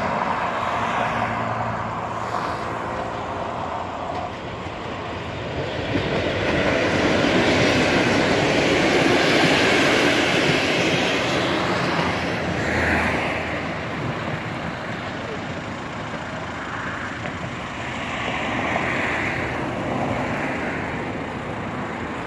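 Passenger train running past on an electrified main line, its coaches rumbling over the rails, growing louder to a peak a few seconds in and then fading as it moves away. Road traffic runs alongside.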